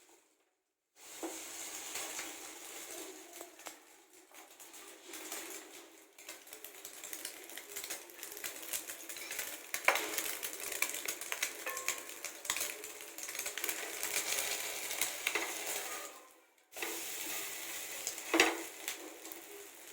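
Egg-dipped bread slices sizzling in ghee on a hot tawa, with sharp clicks and scrapes of a spatula against the pan; the loudest clicks come about ten seconds in and again near the end. The sizzle drops away briefly about three-quarters through, then resumes.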